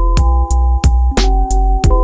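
Instrumental electronic beat with a deep, heavy bass, sharp percussion hits several times a second, and held synth chords changing every second or so; no singing.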